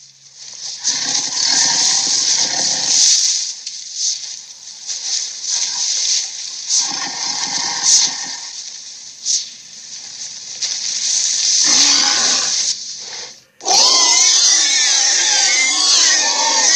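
Giant ape creature sound effects: several rough growls, then a loud, long roar with wavering pitch that begins near the end.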